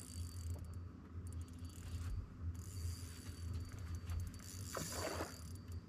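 Fishing reel being cranked under the load of a hooked fish, its gears whirring and ratcheting over a steady low hum.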